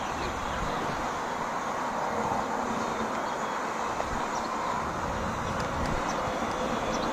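Steady rushing outdoor background noise picked up by a handheld camcorder's microphone, with a few faint ticks.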